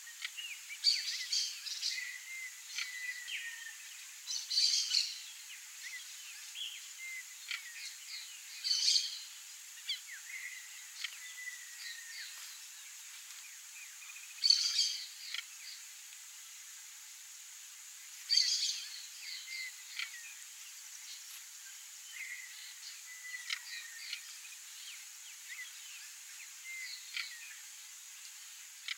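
Wild birds calling: a loud, harsh call repeats five times, every four to six seconds, among smaller chirps and short whistled notes, over a steady high-pitched hiss.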